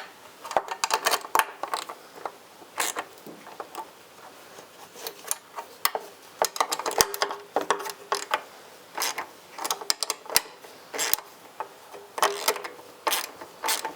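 Hand ratchet clicking in short runs of quick clicks as the frame's mounting bolts are tightened a further quarter turn or so each.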